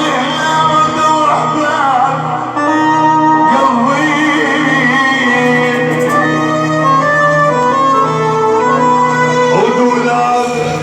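Band music with a violin-like melody line gliding over sustained accompaniment, an instrumental passage between sung lines of an Arabic song.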